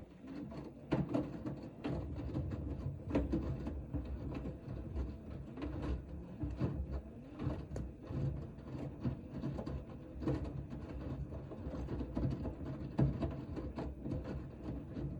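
Hoover H-Wash 500 washing machine in the main wash of a cotton 90°C cycle: the drum turns and tumbles the wet laundry, with water sloshing, the motor running and irregular soft knocks.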